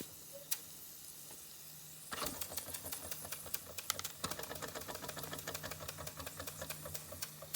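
Bing Reverso toy steam engine running with a rapid, light mechanical ticking that sets in about two seconds in and keeps an even beat, after a few scattered clicks.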